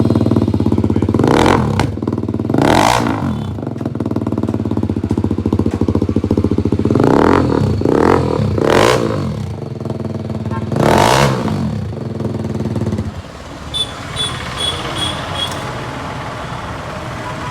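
BMW G 310 RR single-cylinder engine through an SC-Project aftermarket exhaust, idling and revved in about six sharp throttle blips. It stops abruptly about 13 seconds in, and a few short high beeps follow.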